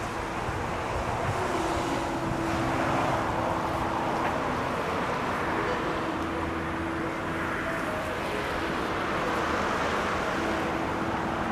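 Steady rushing outdoor noise that slowly swells and fades, with soft background music holding long notes underneath.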